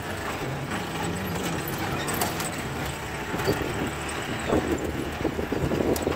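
CJ 550 jeep's engine running as it drives along a rough dirt track, with the body rattling and knocking over the bumps, the clatter getting busier in the second half.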